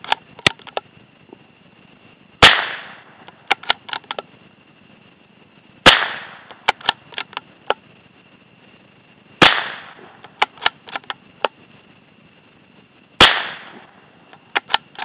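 Marlin 25N bolt-action .22 rimfire rifle fired four times, about three to four seconds apart, each shot followed by a quick series of clicks as the bolt is worked to eject and chamber the next round.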